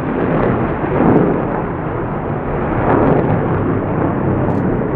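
B-1B Lancer's four afterburning General Electric F101 turbofans in full afterburner as the bomber climbs away: a loud, rough jet roar that swells and fades in waves.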